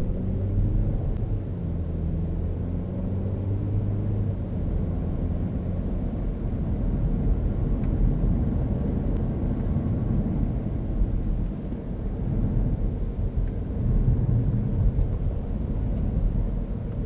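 2012 Chevrolet Cruze's 1.4-litre turbocharged four-cylinder running under way, heard from inside the cabin as a low engine hum over steady tyre and road rumble. The engine hum stands out in the first few seconds and again near the end.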